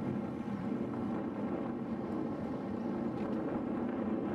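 Steady rush of wind on the microphone and road noise from a moving road bike.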